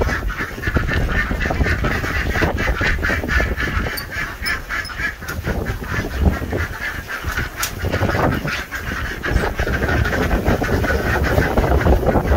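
A penned flock of domestic ducks and geese calling together in rapid, overlapping honks and quacks, excited as feed is brought in and poured for them.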